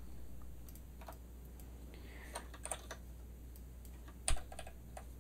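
Scattered keystrokes and clicks on a computer keyboard, a handful of separate taps with the loudest a little past four seconds in, over a faint steady low hum.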